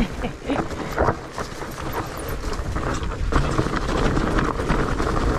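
Mountain bike riding down a dirt trail strewn with fallen leaves: steady tyre and wind noise with many small rattles and knocks from the bike, getting louder as it gathers speed.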